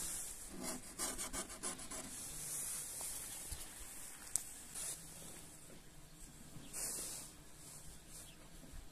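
Scratchy rubbing and scuffing noises, irregular, with a quick run of small clicks about a second in.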